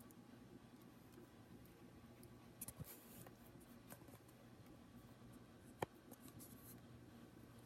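Faint scratching and small clicks of a screwdriver turning small screws into a laptop's screen assembly, with one sharper click near the six-second mark.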